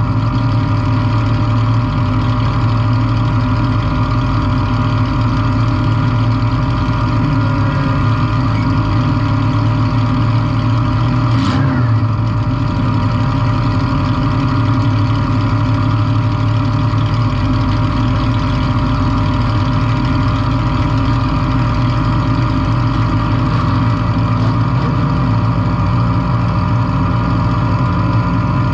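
Compact demolition derby car's engine running loud and steady, with one sharp knock about eleven and a half seconds in.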